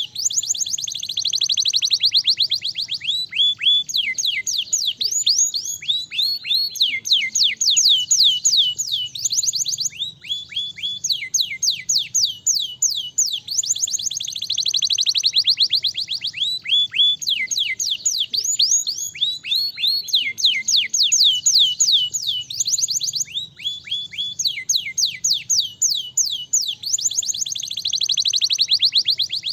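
Domestic canary singing a continuous song of fast trills: runs of rapid, repeated downward-sweeping whistled notes, each phrase a second or two long and changing in pitch and speed, with brief breaks between them.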